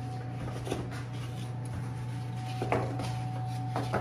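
Egg trays being handled and stacked on a table: a few short light knocks, about a second in, near three seconds and near the end, over a steady low hum.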